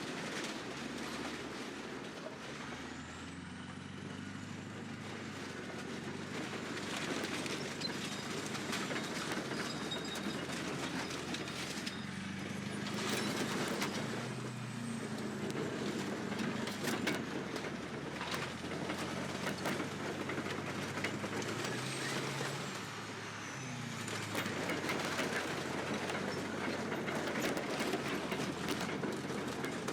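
Bulldozer's diesel engine running, its pitch rising and falling as it works, with repeated cracking and crunching of metal as it rolls over and crushes dirt bikes, heaviest about halfway through.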